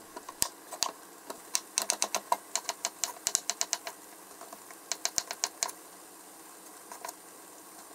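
Kitchen knife slicing a king oyster mushroom on a wooden cutting board: quick, sharp taps of the blade striking the board at about five a second, in a long run and then a shorter one, with a few single taps around them.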